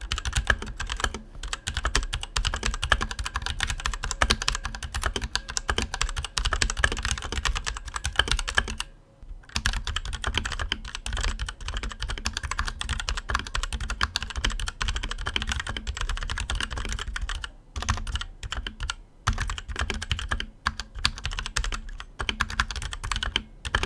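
Fast, continuous typing on a mechanical keyboard fitted with Outemu switches: a dense run of key clacks, broken by brief pauses about nine seconds in and again around eighteen seconds.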